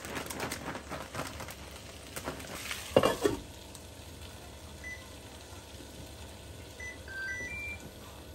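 Shredded cheese rustling as it is shaken out of a plastic bag into a frying pan, then a glass pan lid set down with a ringing clank about three seconds in. Near the end, a few short beeps at different pitches from the cooktop's controls.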